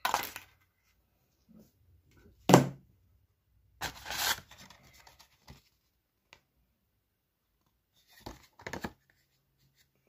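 Handling noise in four short bursts: a sheet of paper rustling close to the microphone, with one louder knock about two and a half seconds in.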